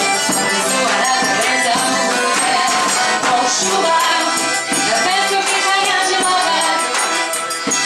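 Live folk song played on accordion and acoustic guitar, with a woman singing.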